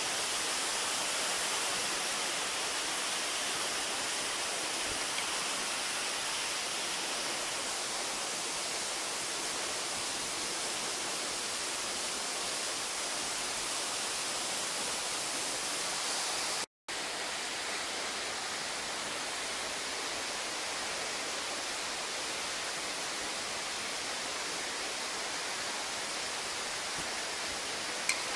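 Steady rush of water running over rocks inside a cave, an even hiss with no change in strength. It cuts out for a moment about two-thirds of the way through and resumes the same.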